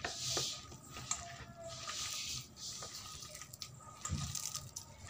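A hand mixing mashed boiled jackfruit and gram flour in a steel bowl: soft, wet squishing and rustling, with a few light taps.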